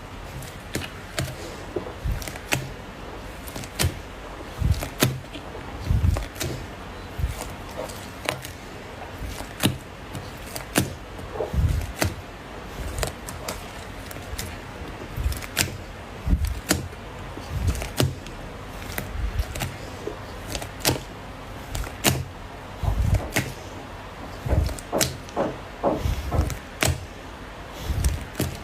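Slime being squeezed and poked by hand, making irregular sharp clicks and pops over soft low thuds, a few each second.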